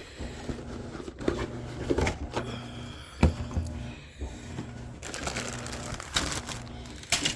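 Plastic model kit parts and their bags being handled out of the box: scattered clicks and knocks of plastic and cardboard, with plastic bags crinkling about five to six seconds in.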